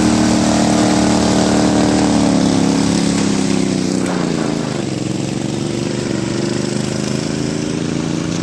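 Pulley-swapped riding lawn mower's engine running, its pitch dropping about three seconds in and then holding steady at a lower speed.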